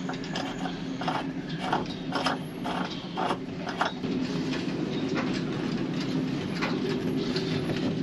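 Irregular metallic clicks and knocks of hand tools fitting a thru-hull, about two to three a second for the first four seconds, then sparser, over a steady low hum.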